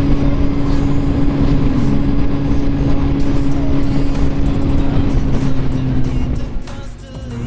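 Motorcycle engine running steadily under way, likely a Kawasaki Z750 inline-four, with rushing wind and road noise. Near the end the engine briefly drops away, then comes back at a slightly lower pitch.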